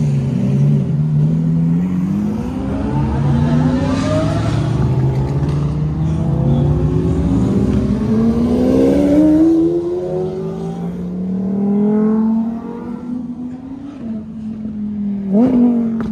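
Lamborghini supercars accelerating hard past one after another, their engines revving up through the gears in overlapping rising sweeps. A last sharp rev comes near the end.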